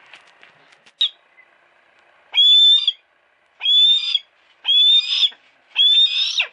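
A captive female hawk calling: one brief note about a second in, then four loud cries, each about half a second long, coming roughly once a second.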